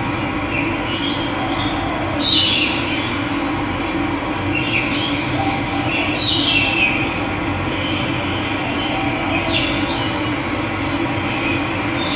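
Running water with a steady rush, and wild birds calling over it: several loud calls about half a second long that slide down in pitch, with softer chirps between.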